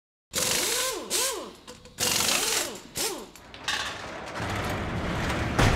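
Produced intro of workshop power-tool sound effects: five short, loud bursts of mechanical whirring whose pitch rises and falls as the tools spin up and down, then a building low rumble that ends in one heavy hit near the end.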